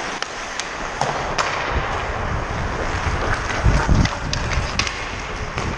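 Hockey skates carving and scraping on rink ice, with scattered sharp clacks of sticks and puck and a few low rumbles of wind on a player-worn camera's microphone.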